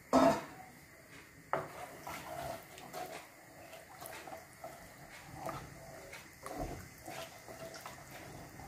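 Kitchen pots and utensils clattering: one sharp loud clank at the start, a second knock about a second and a half in, then light scattered clinks.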